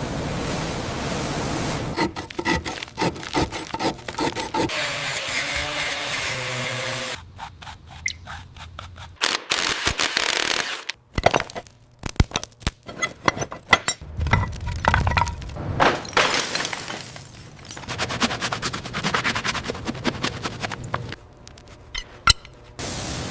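Restoration work sounds cut together in quick succession: scraping, cracking and knocking from tools working on the machine, with sharp clicks throughout and abrupt changes every few seconds.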